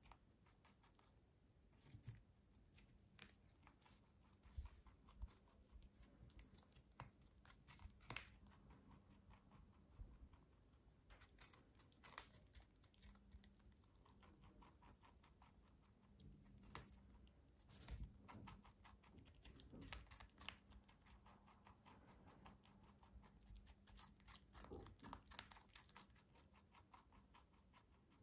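Lop-eared rabbit biting and chewing a raw cucumber: quiet, irregular crisp crunches and clicks of its teeth on the skin and flesh, with one sharper crunch a little past halfway.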